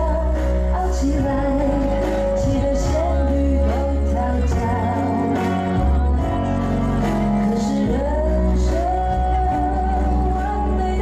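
Music with singing: a sustained vocal line with vibrato over a steady low bass accompaniment.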